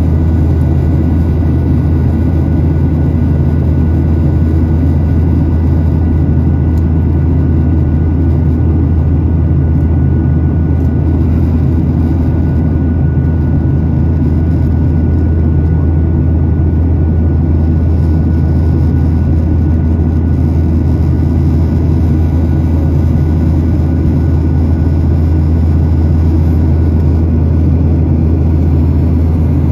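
Cabin noise of a Boeing 737-8 MAX in its climb after takeoff: the CFM LEAP-1B turbofan engines and rushing airflow make a steady, loud low rumble, with a faint steady high whine over it.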